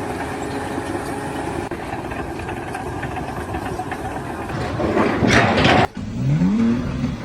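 An engine running steadily, then a loud rushing noise for about a second that cuts off abruptly, followed by a short rising engine note.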